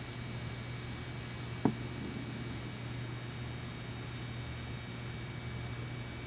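Steady low hum with a faint hiss, broken once about a second and a half in by a single sharp knock as a cardboard box holding paint cans is set down on the ice.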